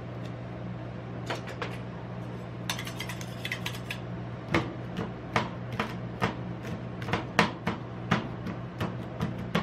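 Metal spatulas striking a steel ice-cream cold plate as they chop chunks of chocolate-coated ice cream bar into the frozen cream, with sharp clinks. A few light taps come first; from about four and a half seconds in, the chopping runs as a quick, regular rhythm, a little over two strikes a second, over a steady low hum.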